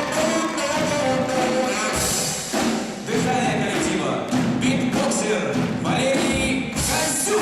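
Live concert music: a folk vocal group singing over band accompaniment, with drum hits.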